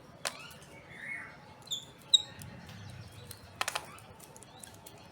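Birds chirping: a few short, high chirps, with two sharp clicks, one just after the start and one past the middle.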